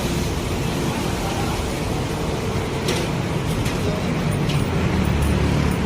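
Steady background din of a busy eatery: a low traffic-like rumble, faint voices and a few light clicks of tableware.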